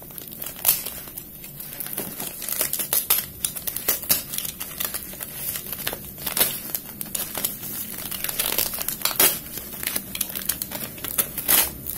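Plastic courier mailer bag crinkling in quick, irregular crackles as it is held down and slit open with a knife.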